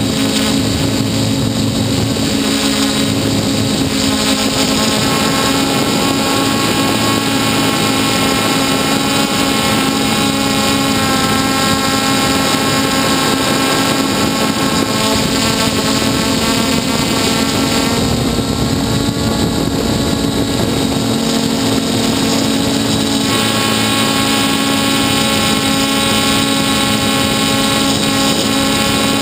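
Hexacopter's six electric motors and propellers whining steadily, picked up by the camera on board, a stack of several steady tones that shifts a little about 18 and 23 seconds in as the craft manoeuvres.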